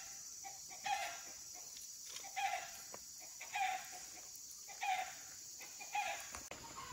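An animal's short call repeating at an even pace, five times, roughly once every second and a quarter, over a faint steady high hiss.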